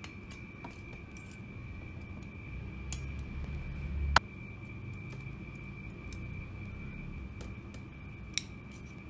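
Small clicks and taps of thin steel model parts being handled with cutters and tweezers. One sharp, loud click about four seconds in, and a smaller ringing click near the end.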